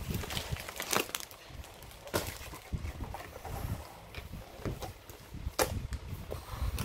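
Cardboard-box and plastic-wrap handling noise as a rolled diamond painting canvas is slid out of its long box and laid on the table, with rustling and a few sharp knocks, the clearest about one, two and five and a half seconds in.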